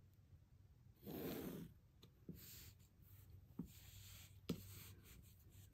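Quiet sounds of tracing paper and a pencil against a wooden ruler: a rustle of the paper being moved about a second in, then faint pencil scratching with a few light taps, the sharpest about three-quarters through.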